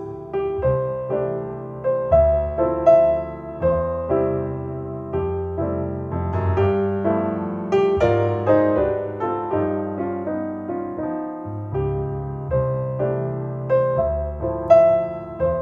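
Solo piano music played back through Paradigm Persona 7F floorstanding loudspeakers driven by an Accuphase E-280 integrated amplifier. Notes are struck about twice a second over sustained bass notes.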